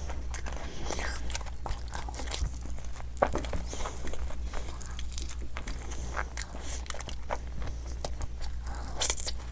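Close-miked chewing of fried Indian snacks (pakoda and samosa chaat), with irregular crunchy bites and small wet mouth clicks.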